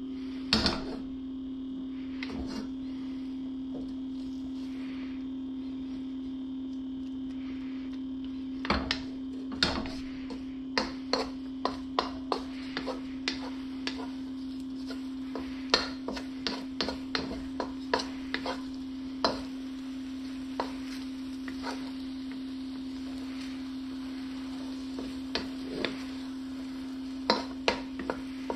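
A spatula knocking and scraping against a wok as scrambled eggs are stirred: many sharp taps, thickest through the middle, with a few near the start and near the end. They sit over a steady low hum.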